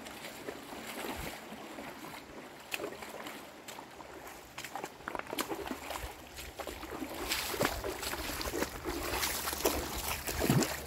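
A shallow, rocky river runs over stones while rubber boots slosh and splash through the water in wading steps. The splashing grows louder from about seven seconds in as the wader comes close.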